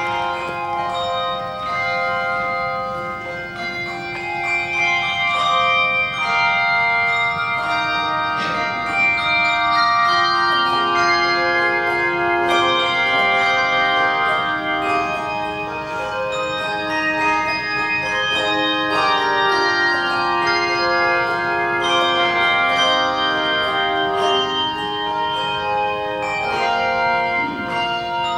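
A handbell choir plays a slow piece, with many bells ringing together in chords and a melody on top. The notes are long and overlap as each bell rings on.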